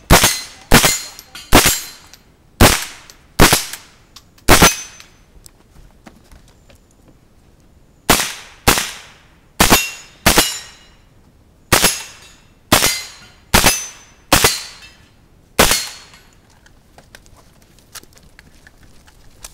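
Smith & Wesson M&P 15-22 .22 LR semi-automatic rifle firing CCI Standard Velocity rounds: six shots roughly a second apart, a pause of about three seconds, then nine more at a similar pace, each shot with a short echo.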